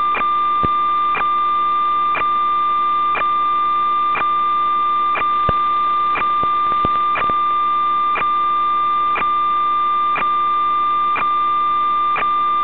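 A steady high electronic tone with a short click about once a second, and a few extra clicks near the middle: interference noise on the audio of the quad's analog 5.8 GHz FPV video link, as recorded from the video receiver.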